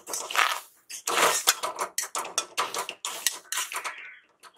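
Metal spatula scraping and knocking against a steel wok in quick repeated strokes, stirring snail meat in sizzling oil.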